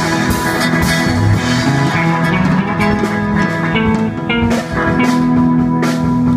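Live blues-rock band playing: electric guitar lines over a walking bass and a drum kit with steady cymbal strokes.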